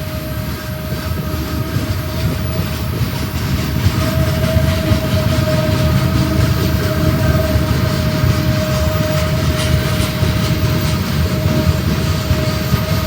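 Freight train rumbling past, growing louder over the first few seconds and then holding steady, with a steady whine running through it.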